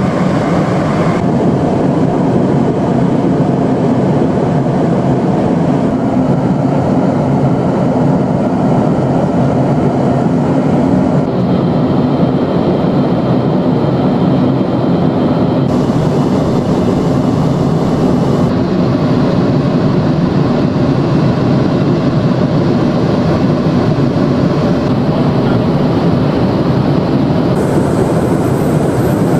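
Steady cabin noise inside a Cessna Citation Mustang business jet in cruise: the even rush of airflow and its twin Pratt & Whitney PW615F turbofans. The treble shifts slightly a few times as the recording cuts between clips.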